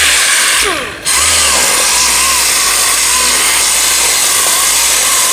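An 8-inch orbital sander running against short-strand fibreglass body filler, grinding it down with coarse paper. The tool runs steadily, dips briefly about a second in, then carries on.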